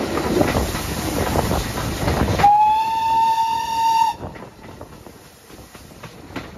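Train running noise, a rumble with wheels clicking over rail joints, then about two and a half seconds in the steam locomotive's whistle sounds one steady blast of about a second and a half. After the whistle the running noise is quieter, with scattered clicks.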